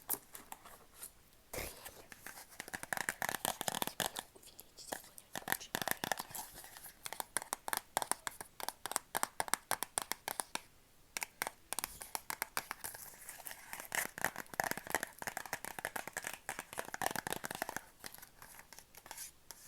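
Rapid, irregular crackling and tapping close to the microphone, as from hands tapping and crinkling objects: ASMR trigger sounds.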